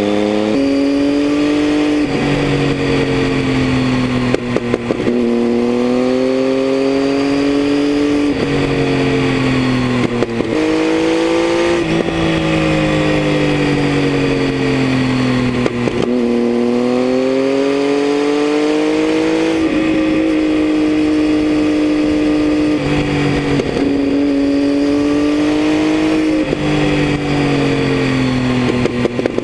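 Triumph Tiger 800's inline three-cylinder engine through a Leo Vince aftermarket exhaust, running hard under way. Its note rises and falls through the bends and is broken by a few short gaps at gear changes.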